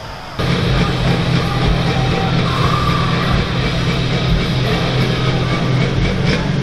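Loud rock music with electric guitar, coming in suddenly about half a second in.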